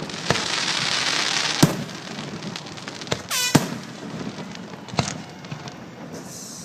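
Aerial fireworks bursting: about five sharp bangs, with a dense crackling hiss over the first two seconds and a whistle gliding steeply down in pitch a little after three seconds.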